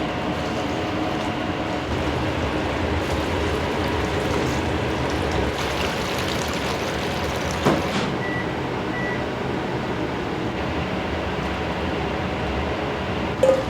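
Steady restaurant-kitchen noise, a hum of fans and running equipment. A sharp clack comes about eight seconds in, then two short high beeps, and a knock near the end.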